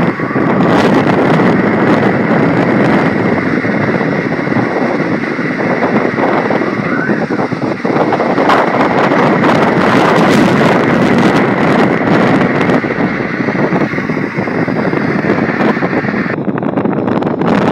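Strong wind blowing in a steady, loud rush, buffeting the microphone.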